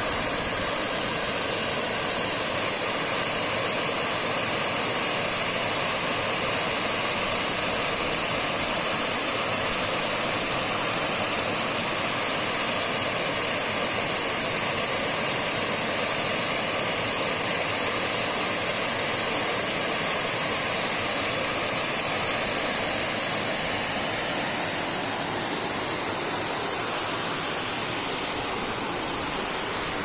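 Waterfall cascading over several rock ledges into a pool: a steady rushing of falling water that eases slightly near the end.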